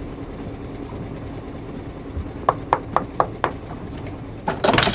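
Knocking on a cabin door: five quick, sharp knocks in about a second, over a low steady hum. A short clatter near the end.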